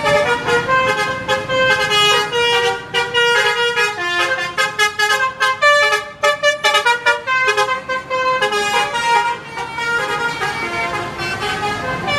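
Bus telolet multi-tone horns, the Basuri type, playing a quick tune of short notes that change several times a second, often more than one note at once.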